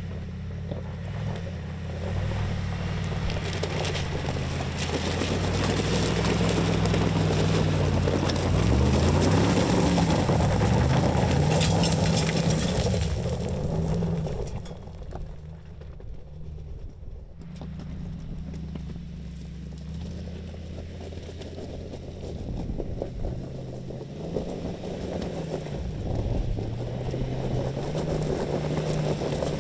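Mercedes-AMG G63's 4.0-litre twin-turbo V8 running off-road on loose rock, its revs rising and falling several times, with a loud rush of tyre and gravel noise in the first half. The engine drops back to a quieter run midway, then climbs in revs again near the end.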